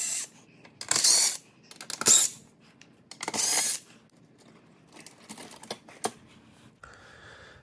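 Phillips screws being backed out of a range's power supply board mounting: three short, rasping bursts about a second apart, then a few light metallic clicks.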